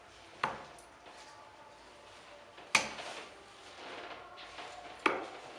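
Three steel-tip darts hitting a Bull's Focus II bristle dartboard one after another, each a short sharp thud, about two and a half seconds apart; the second is the loudest.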